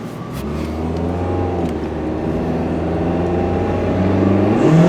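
An engine running with a low, steady hum that drifts slightly in pitch and grows louder toward the end.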